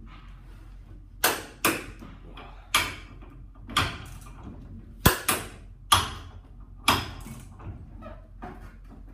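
Click-type torque wrench set to 400 newton metres clicking over as it is pulled hard against a bolt: about eight sharp clicks, some in quick pairs. The socket does not turn, so the bolt is already tight to around 400 Nm.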